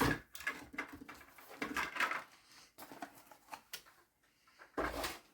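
Irregular light clicks and taps of plastic HO scale model locomotives and their parts being handled on a workbench, with no motor running.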